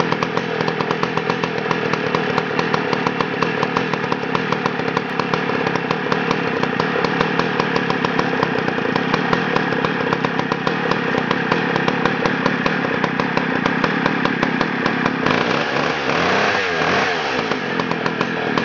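Vintage Homelite 925 chainsaw's 82 cc single-cylinder two-stroke engine running steadily at low speed. About 15 seconds in it is revved, the engine pitch rising and falling.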